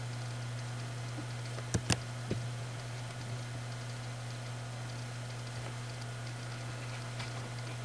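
Steady low hum and hiss, with a few sharp clicks close together about two seconds in and fainter single clicks later.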